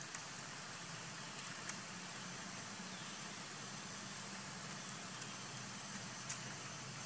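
Steady outdoor background noise: an even hiss over a low hum, with a few faint clicks.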